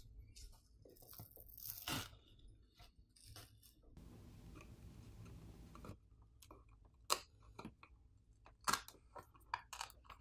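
A pry tool working the adhesive-bonded glass back plate off a Samsung Galaxy S25 Ultra: scattered clicks, scrapes and crackles of glue giving way. There is a steady hiss for about two seconds in the middle and a run of sharper ticks near the end.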